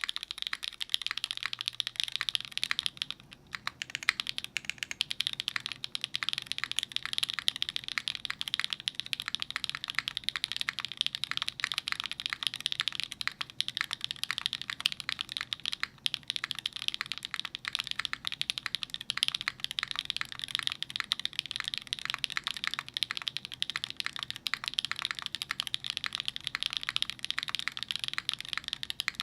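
Continuous fast typing on a gasket-mounted mechanical keyboard with a full aluminum plate, stock Gateron Deepping long-pole linear switches, GMK keycaps and no dampening: a dense stream of sharp key clacks with a few brief pauses.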